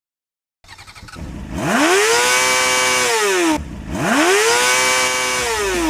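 An engine revving twice. Each rev climbs in pitch, holds briefly, then falls away and stops.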